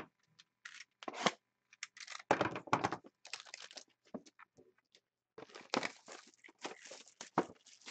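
Clear plastic shrink-wrap being torn off a sealed trading-card box and crumpled in the hands: a run of irregular crinkling, ripping bursts, with a short lull a little past the middle.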